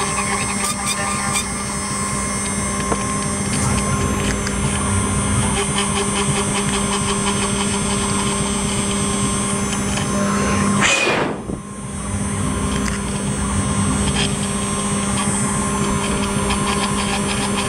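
CNC engraving machine running, its spindle driving a fine engraving bit into a metal plate: a steady mechanical hum with several constant tones, briefly dipping in level about eleven seconds in.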